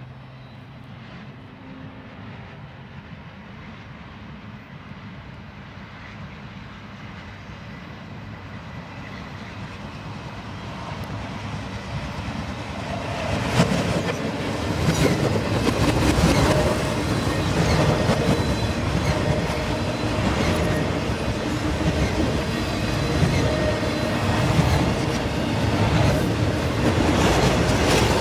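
Intermodal freight train of truck trailers on flatcars passing, played in reverse. It grows steadily louder over the first half, then becomes a close, steady rumble with the wheels clacking over rail joints.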